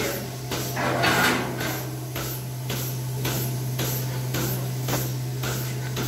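Milking-parlour machinery running: a steady low hum from the vacuum system, with the rhythmic hiss-and-click of the milking-machine pulsators, about two a second.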